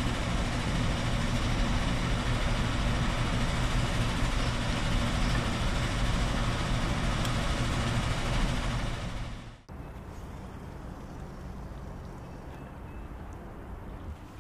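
Loud construction-site machinery running steadily with a low hum, a noise likened to cement being poured into a big barrel. It cuts off abruptly about nine and a half seconds in, leaving a much quieter steady background.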